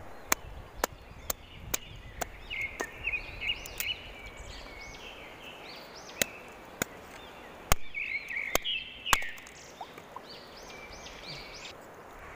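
Dry branches and twigs snapping as they are broken by hand for firewood: about ten sharp cracks, several in quick succession at the start and more in the second half. Behind them runs a steady hiss of flowing river water, with birds chirping.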